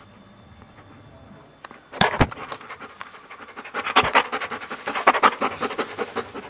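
Dog panting right at the microphone, quick rapid breaths starting about two seconds in.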